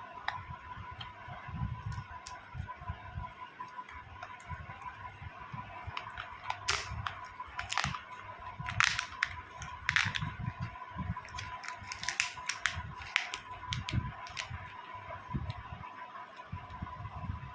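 Plastic being handled: irregular sharp clicks and crackles, thickest in the middle, with soft low thumps and a faint steady high-pitched hum behind them.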